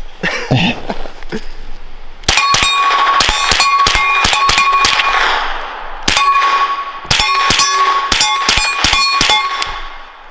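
Two fast strings of shots from a suppressed Kel-Tec Sub-2000 pistol-calibre carbine, the first starting about two seconds in and the second about six seconds in. The shots are sharp, with a steel target ringing on each hit.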